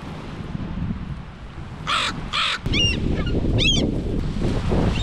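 Crows giving two harsh caws about two seconds in, then gulls calling with a run of short, falling cries. A low rumble of wind on the microphone comes in beneath the gulls at the same time.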